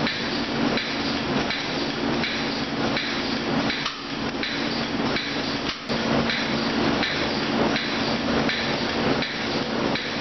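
A hand stapler striking and driving staples through a data-matrix tag into a wooden stool top, over a steady hum.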